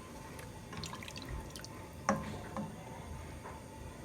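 Scattered small plops, drips and clicks as pieces are dropped into a pot of yakhni stock, with one sharper knock about two seconds in.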